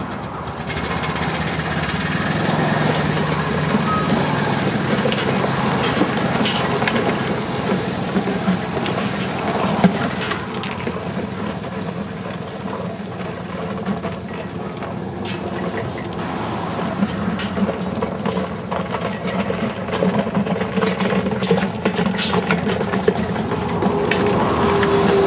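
Quad bike engine running as it tows a K-Line irrigation pipe off a wire reel, mixed with scattered clicks and rattles from the spinning reel and the pipe and pods dragging over gravel.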